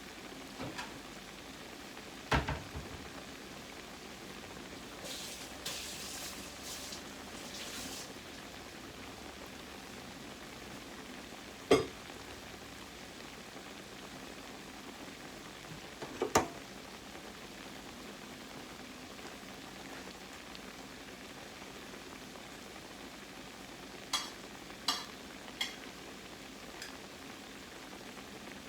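Croquettes frying in hot oil, a steady sizzle, with a few sharp clinks and knocks of kitchen utensils against the pan and some brief scraping about a quarter of the way in.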